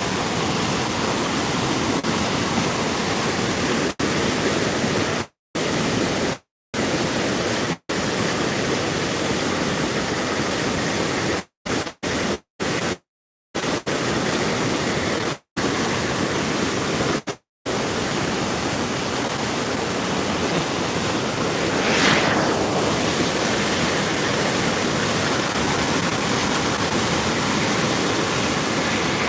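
Floodwater rushing, a steady loud wash of noise. The sound cuts out completely for moments several times between about five and eighteen seconds in.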